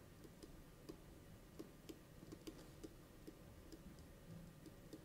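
Near silence with faint, irregular light clicks, about two or three a second, from a pen writing on the page.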